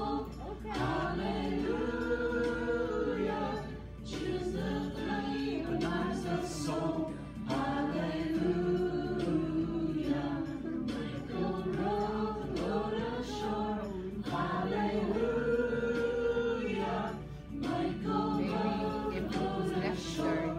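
A group of voices singing a hymn-like song together, in phrases of a few seconds with short breaths between them.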